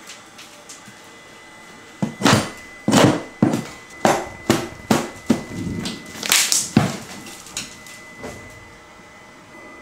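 A pry bar banging on and tearing at the wooden paneling of a kitchen soffit box, about a dozen sharp irregular knocks and cracks between about two and seven seconds in, as the end panel is pried loose.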